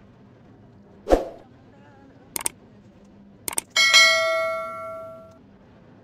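Subscribe-reminder sound effects laid over the video: a short whoosh about a second in, two pairs of mouse clicks, then a bright bell ding that rings out for about a second and a half.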